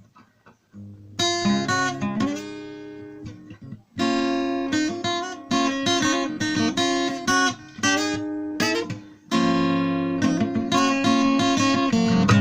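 Acoustic guitar strumming chords, the introduction to a slow song, starting about a second in.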